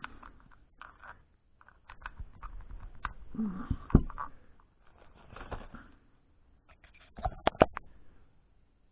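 Handling noise of a plastic power bank and its USB cable: rustling and scattered clicks as the cable is fitted to the bank, with a cluster of sharp clicks near the end.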